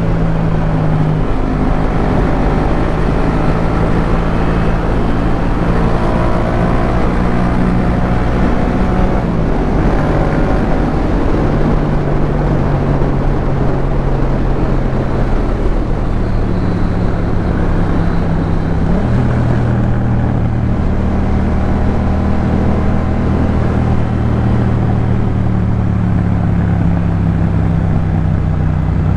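Yamaha MT-07's 689 cc parallel-twin engine running through a Jeskap K4 full exhaust while riding, a steady note whose pitch steps up and down several times with throttle and gear changes.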